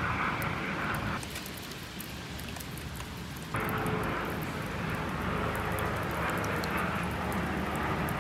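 Steady outdoor city ambience: a low hum like distant traffic, with faint ticks of light rain. The sound drops abruptly about a second in and comes back up sharply at three and a half seconds.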